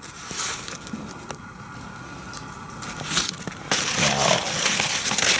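Old paper documents rustling and crinkling as they are handled and leafed through, growing louder and busier past the middle.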